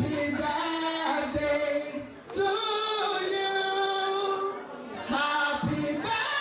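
A group of men and women singing together, led by a woman singing into a microphone, in long held notes with short breaks between phrases about two seconds in and again about five seconds in.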